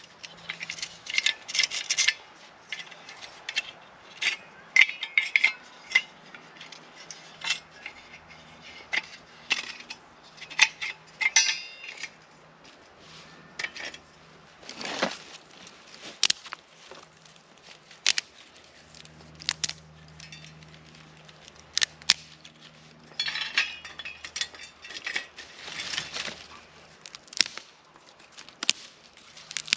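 Irregular clinks, taps and scrapes of a small metal wood-gas camp stove being handled and set up, mixed with twigs snapping and a knife working on a stick. The sounds come in clusters of sharp strokes, busiest in the first twelve seconds and again about twenty-three to twenty-seven seconds in.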